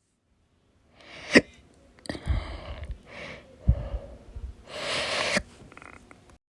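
A person hiccuping: sharp, sudden hiccups, the clearest about a second in and again near four seconds, with gasping breaths between and a longer breathy rush of air about five seconds in.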